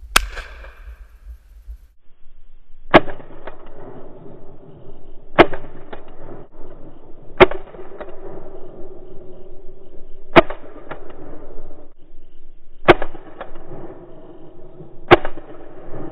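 Benelli shotgun firing seven loud shots, one right at the start and then one every two to three seconds. Between the shots a flock of Canada geese is honking overhead.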